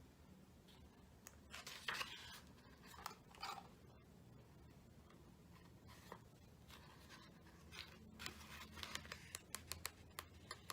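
Faint rustling, scraping and small clicks of paper and cardboard packaging being handled, the strokes coming thicker near the end.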